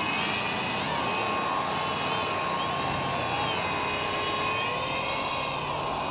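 Radio-controlled scale model hovercraft running its fans and propellers, a steady whirring whine whose pitch swings up and down several times.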